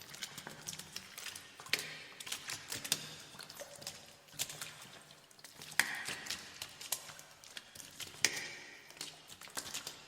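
Slow footsteps splashing through shallow water, a heavier splash about every second and a half, with smaller drips and sloshes between the steps.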